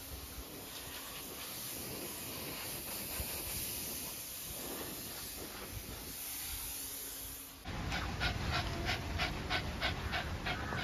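A pet grooming blower's steady airy hiss while it dries a 12-year-old Shih Tzu's coat. About eight seconds in this changes to the dog panting quickly, about four breaths a second.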